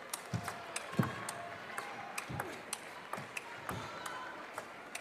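Table tennis rally: the ball clicking sharply and quickly off bats and table, several strikes a second, with a few low thuds from the players' footwork on the court floor.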